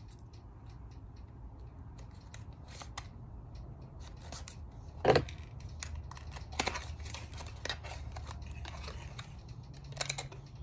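Scattered clicks, taps and scrapes of a small cardboard product box being handled and opened, with one louder knock about five seconds in and a cluster of clicks near the end.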